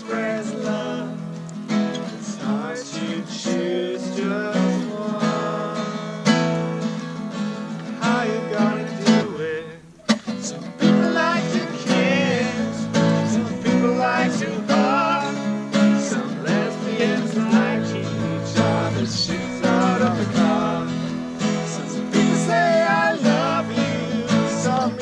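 Acoustic guitar strummed with a voice singing along, with a brief break just before ten seconds in.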